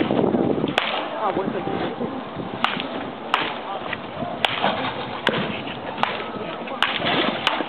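Toss batting: eight sharp cracks of wooden bats hitting tossed baseballs, about one a second, from more than one batter hitting into practice nets. Voices can be heard in the background.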